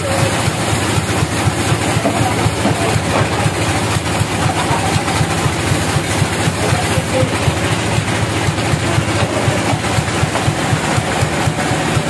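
Large band sawmill running at idle with no cut under way: a steady, loud low mechanical drone with a fast, even pulsing.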